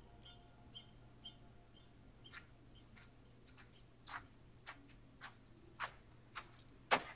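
Faint insect sounds of a night forest: small high chirps about twice a second, then a steady high trill from about two seconds in. Under the trill runs a series of sharp taps that grow louder toward the end.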